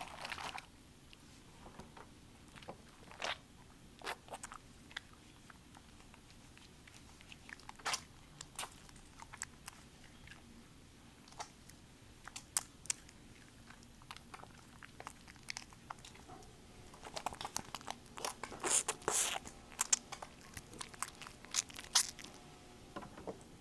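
Soapy lather in a foil tray crackling and squishing under hands, in scattered small clicks and pops; the crackling is thickest about three-quarters of the way through.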